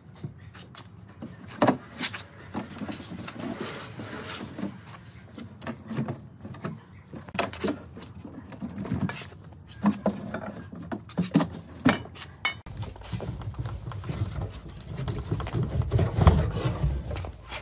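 A wooden crate on a wooden pallet is dragged across a concrete floor with a steel hook, giving irregular scrapes, knocks and rattling clatter. About two-thirds of the way through the sound changes to a denser low rumbling with more knocks as the crate is handled by hand.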